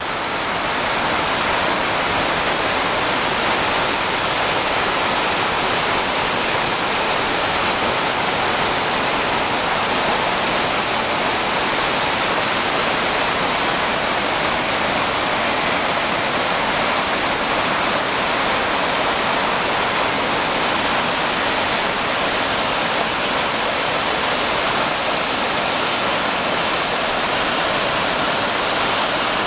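Whitewater of Josephine Falls rushing and tumbling between large boulders: a steady, loud, unbroken rushing of water.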